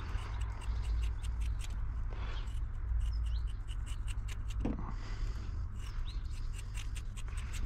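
Scissors snipping through fibreglass mat: a run of small, irregular crisp cuts over a low steady rumble.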